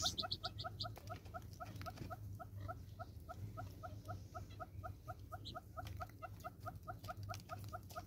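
A bird calling a steady, even series of short rising chirps, about four or five a second. A faster run of higher-pitched notes overlaps it and stops about a second in.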